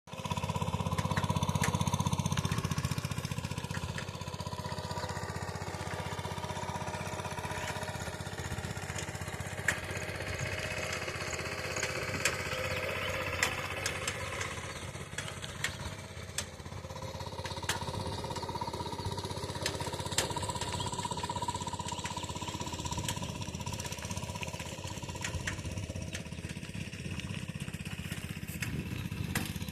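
An engine running steadily with a low rumble, with occasional light clicks.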